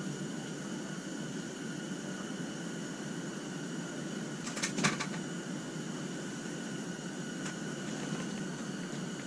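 Steady hiss and hum of a portable propane radiant heater burning. A short cluster of sharp clicks comes about halfway through, with a couple of fainter ticks later.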